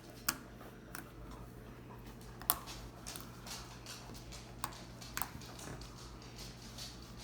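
Fluffy slime being squished and poked by hand, giving a few sharp scattered clicking pops with softer crackling between them, the loudest pop about two and a half seconds in.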